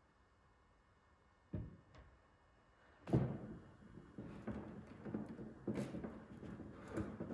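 Knocks and clatters of things being handled: one sharp knock about one and a half seconds in, then from about three seconds a busy run of knocks and rustling.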